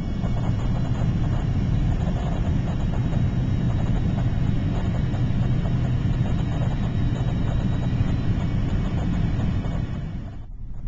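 Airliner cabin noise: a steady low rumble of jet engines and rushing air, dipping briefly near the end.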